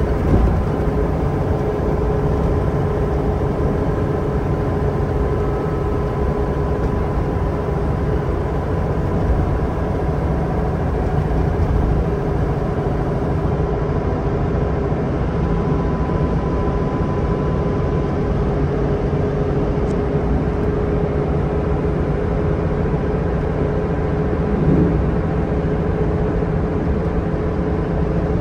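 Leyland Olympian double-decker bus with an ECW coach body cruising at steady motorway speed, heard from on board. The engine drone and road rumble hold steady, with a constant whine running through them.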